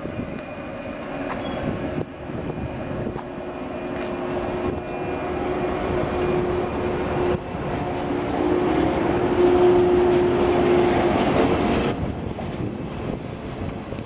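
Electric train running past along the station platform: rumble of wheels on rail with a steady hum, growing louder to a peak about ten seconds in, then dropping off sharply about two seconds later.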